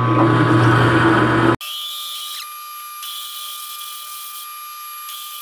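Metal lathe running at about 220 rpm while a large twist drill in the tailstock cuts into the pulley blank: a steady machining drone with a low hum. About a second and a half in it cuts off abruptly and gives way to a quieter, thinner, higher hiss with a steady whine.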